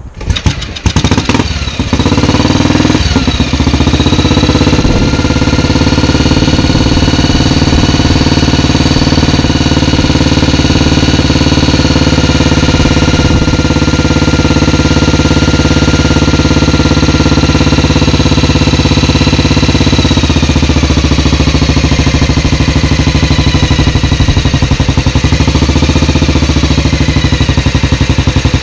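1954 Matchless G3/LS single-cylinder four-stroke engine kick-started, firing a few times and catching within about two seconds, then running steadily. It is the engine's first run since it was dismantled and rebuilt.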